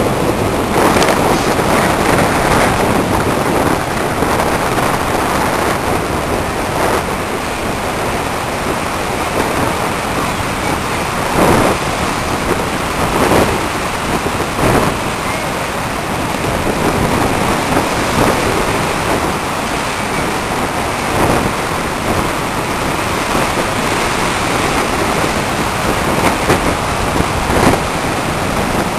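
Rough sea: waves breaking in heavy surf with wind buffeting the microphone, a continuous rushing noise with brief louder surges every few seconds.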